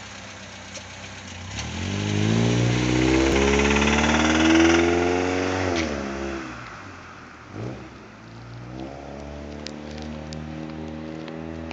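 Car engine idling, then revved once: the pitch climbs steadily to a peak about halfway through and drops back to idle, followed by a brief quick blip of the throttle.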